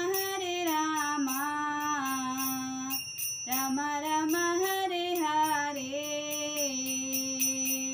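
A woman singing the closing notes of a Bengali Vaishnava bhajan on long drawn-out notes, breaking off briefly about three seconds in, over a steady beat of metallic jingles.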